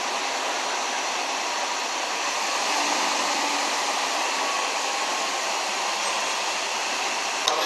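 Steady hiss of street noise, with a Hong Kong double-decker tram running on its rails.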